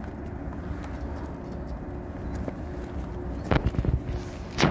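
A JR 101-series electric train standing at the platform, a steady low hum from its running equipment. About three and a half seconds in comes a burst of loud thumps, and near the end a single sharp knock.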